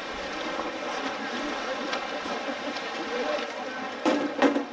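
Steady pool ambience from a water polo game: water noise and a murmur of distant voices, broken about four seconds in by two sharp, loud sounds close together.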